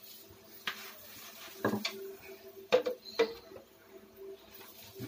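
Wooden rolling pin clacking and rolling on a stone countertop while roti dough is rolled out: a few scattered knocks and taps, the two sharpest a little past the middle.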